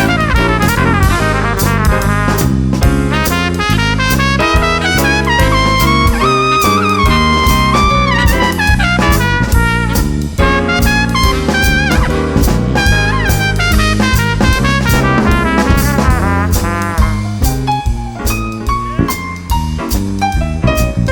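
Live jazz band: a trumpet plays a melodic solo over a stepping bass line and drum kit with cymbals. The horn holds a long note about six to eight seconds in, and the band plays more softly near the end.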